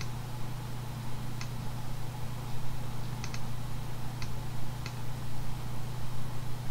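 Computer mouse clicking a few separate times, with a quick double click about three seconds in, over a steady low electrical hum.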